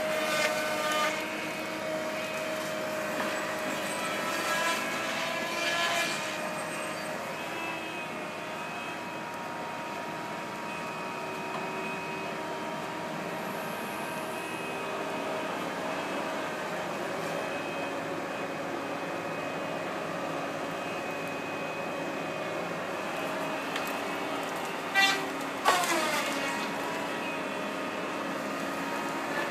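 Feller buncher running steadily while cutting trees, its engine and hydraulics giving a constant drone with several steady whining tones. A few sharper noises come in the first six seconds, and two short loud sounds come about 25 seconds in, the second followed by a falling whine.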